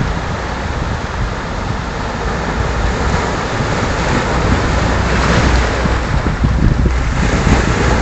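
Rough sea surf breaking and washing over rocks, with wind buffeting the microphone. A stronger wash swells about halfway through, and the surf grows louder near the end.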